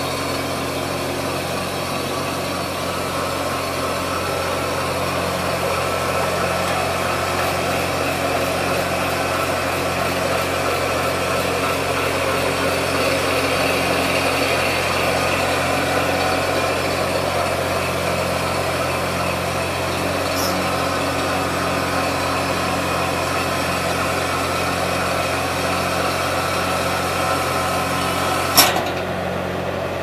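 Skid steer engine running steadily at idle, with a sharp click near the end.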